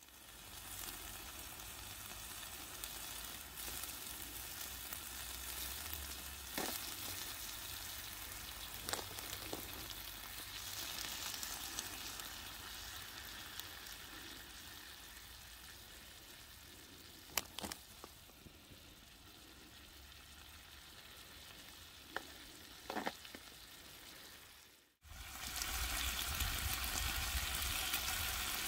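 Chicken pieces sizzling as they fry in a pan over a small camping stove, with a few light clicks as they are stirred with a fork. After a brief break about 25 s in, the sizzling comes back louder.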